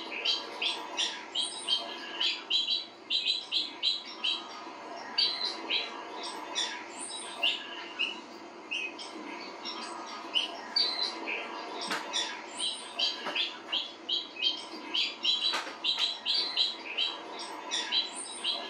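Bird chirping from a cat-game video played through a television: short high chirps in quick clusters, over a steady low hum. Two brief knocks come about twelve and fifteen and a half seconds in.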